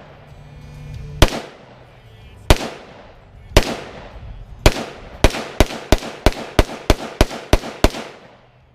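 Rifle fire: four single shots about a second apart, then a fast string of about nine shots at roughly three a second, each a sharp crack with a short echo.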